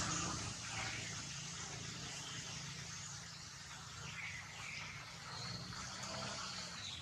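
A low engine hum, strongest in the first half-second and then fainter, under steady outdoor background hiss. A few faint high chirps come through, and a thin high whistle is heard near the end.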